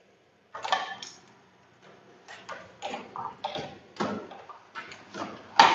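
A run of irregular knocks and clicks as a belt conveyor is handled and latched onto the outlet of a ramen noodle-cutting machine.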